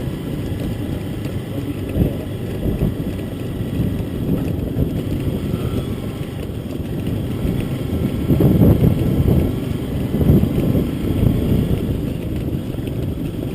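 Wind buffeting the microphone as a loud, low rumbling noise, strongest about eight to ten seconds in.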